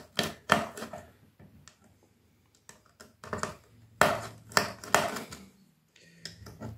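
Irregular clicks, taps and scrapes of a small metal screwdriver working against the metal chassis and circuit boards of a military radio control box, with a short quiet stretch about two seconds in.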